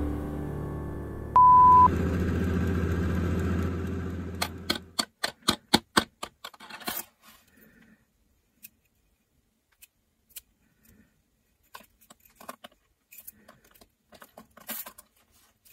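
Miniature working toy oven switched on: one short steady beep, then a low hum that stops about five seconds in, followed by a quick run of sharp clicks, about five a second. After that, only scattered light clicks and metallic taps of small objects being handled.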